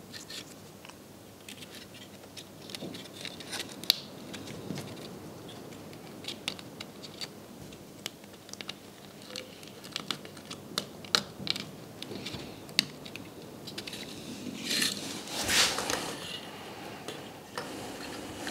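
Small wooden kumiko pieces clicking and tapping as they are handled and pressed into a wooden lattice on a workbench, with a longer scraping rustle about fifteen seconds in.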